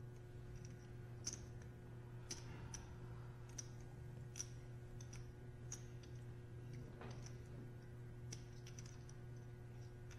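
Clay poker chips clicking together in short, irregular clicks as a player fiddles with his chip stacks, faint over a steady low hum.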